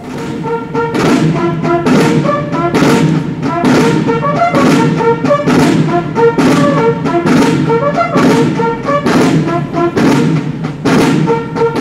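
Military band playing a march: brass melody over drum and percussion strikes about once a second, starting abruptly.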